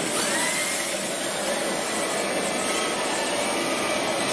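RC drift cars on the track: electric motors whining, their pitch gliding up and down with the throttle, over a steady hiss of tyres sliding on the surface.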